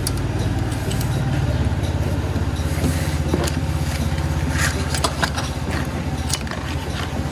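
A steady low, fast-pulsing engine hum from a running motor vehicle, with a few light metallic clicks and scrapes from the spark plug socket tool.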